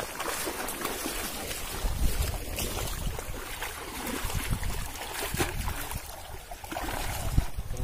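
Wind buffeting the microphone in gusts, over shallow lake water lapping and splashing at the shore.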